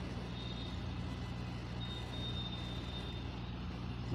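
Steady low hum of background machinery, with a faint high thin tone that comes and goes.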